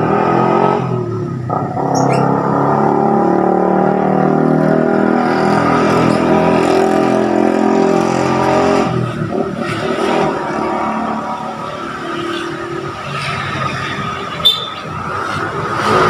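Motor vehicle engine running close by, a loud, steady drone that eases off a little after about nine seconds, with one brief sharp sound near the end.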